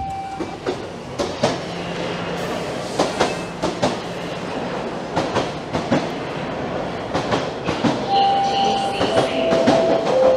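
TTC Toronto Rocket subway train standing at the platform with its rumble and a string of sharp clacks. From about eight seconds in, its three-note door chime sounds, each note lower than the last, about a second apart.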